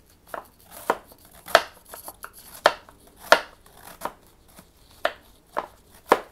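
Kitchen knife slicing a head of cabbage into thin shreds and striking a wooden cutting board: a dozen or so sharp, crisp chops at an uneven pace of about one to two a second.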